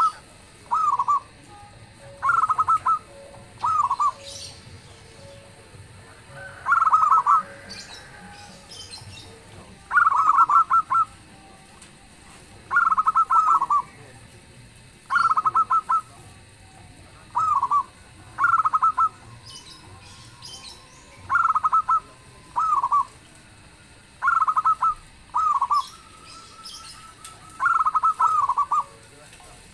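Zebra doves (perkutut) singing their rapid, trilled coos in short bursts, each lasting under a second and repeating every second or two.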